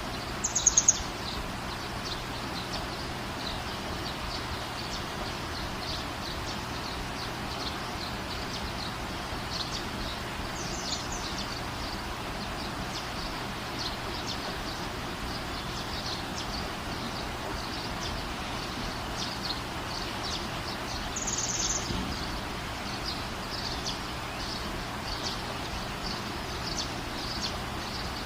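Steady rain hiss with small birds chirping throughout. A louder burst of high bird calls comes about a second in, and another about 21 seconds in.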